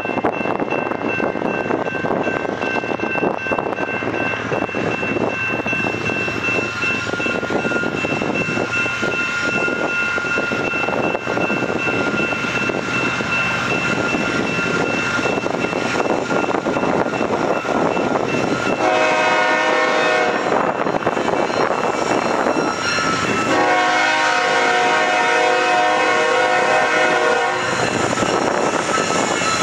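BNSF freight train's diesel locomotives working as the train pulls away, a steady rumble. In the second half the locomotive air horn sounds two long blasts, the second longer than the first.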